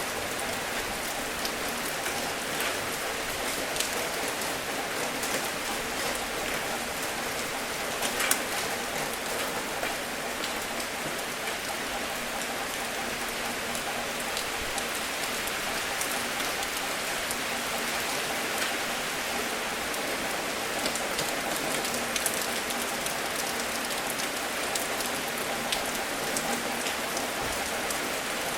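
Steady rain falling, with many individual drops tapping distinctly over the hiss. There is a brief louder spatter about eight seconds in.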